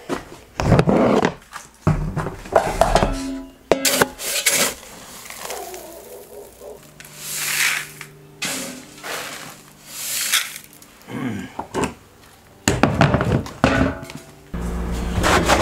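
Metal feed scoop digging into chicken feed in plastic bins and pouring it into a plastic bucket: repeated scrapes and knocks, with the rush of poured feed several times.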